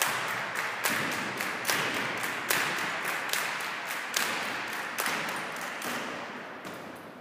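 Spectators clapping in a steady rhythm, about one clap every second, over a general hall noise that fades steadily away.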